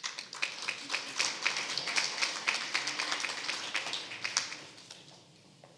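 Audience applauding, many hands clapping at once, dying away about five seconds in.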